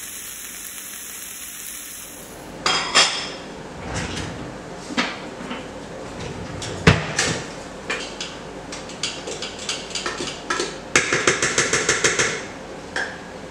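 A steady hiss, then a utensil clinking and knocking on a rice cooker's pot and lid in irregular sharp knocks, with a fast string of taps near the end.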